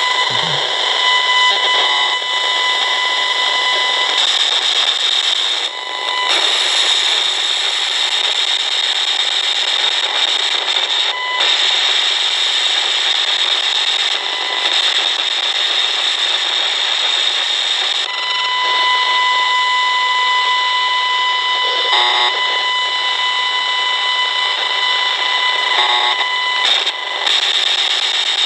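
Esmog Spion field meter's loudspeaker giving a loud, steady hiss with a high steady tone that comes and goes. This is its audio rendering of the signal picked up at the open end of a TV antenna cable, which the owner takes for line pollution on the house wiring.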